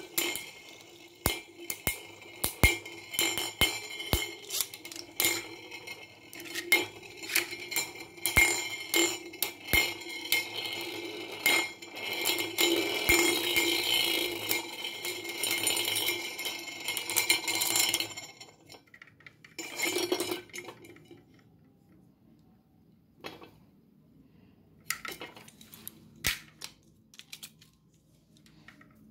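Two Beyblade spinning tops battling on a large metal plate: a steady metallic ringing whirr from the spinning tops, broken by many sharp clacks as they collide. About eighteen seconds in it dies away, leaving only a few scattered clicks.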